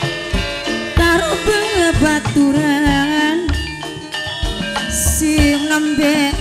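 Gamelan ensemble playing: ringing bronze pot gongs and metallophones, low drum strokes about once a second, and a female singer's wavering line bending through the melody. A brief bright splash, like a small cymbal, sounds about five seconds in.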